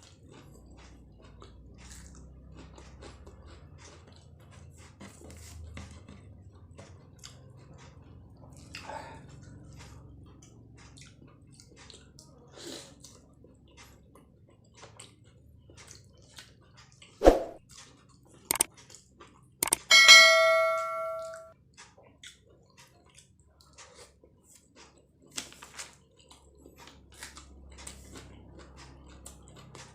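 Close-miked chewing of martabak telur, faint and steady. A sharp knock comes about two-thirds of the way in, followed shortly by a bright ringing clink that dies away over about a second and a half.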